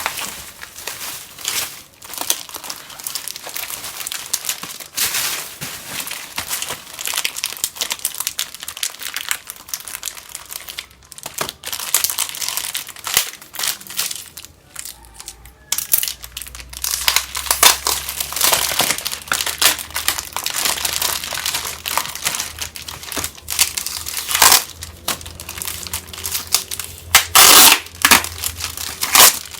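Soap packaging crinkling and crackling in irregular bursts as it is handled and unwrapped, with louder stretches past the middle and near the end.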